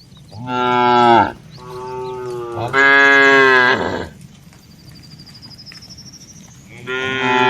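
Cattle mooing: four long moos, three following one another in the first four seconds, the second quieter and lower, and another starting near the end.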